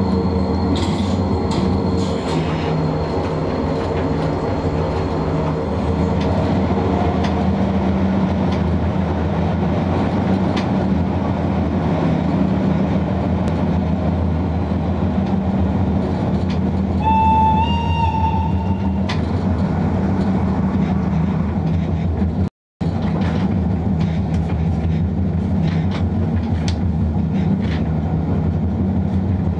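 Cab noise of a DB class E10 electric locomotive under way: a steady running hum with rail noise and faint wheel clicks over the rail joints. About two-thirds of the way through comes a single horn note lasting about two seconds, and shortly after that the sound cuts out for a moment.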